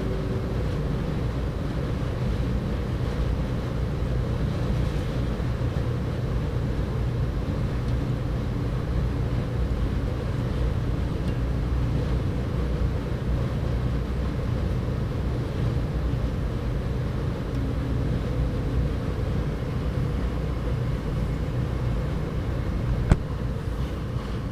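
Steady low rumble with a faint hum through it, and a single sharp click near the end.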